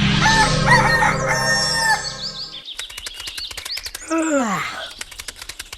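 A rooster crowing for about two seconds, followed by a rapid run of clicks with a short falling tone about four seconds in.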